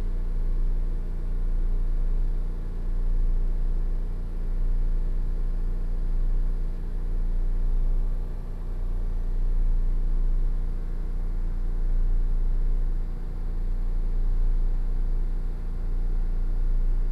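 Inside a Sotetsu 8000 series electric train car: a steady low rumble with a constant hum. There is no rising or falling inverter whine.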